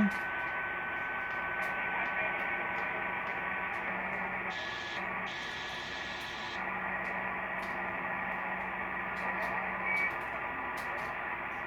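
Static hiss from a portable software-defined radio receiver tuned to AM on the 11-meter CB band, playing through a speaker: an empty channel in poor band conditions. A thin steady whistle stops about a second and a half in, and a faint low hum runs under much of it. Around the middle the hiss briefly turns brighter for about two seconds.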